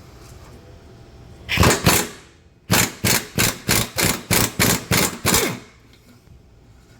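A 3/8-inch ratchet with a 12 mm socket on a swivel clicking as it is worked back and forth on an exhaust bolt: one longer run of clicks about a second and a half in, then about ten quick strokes at roughly four a second.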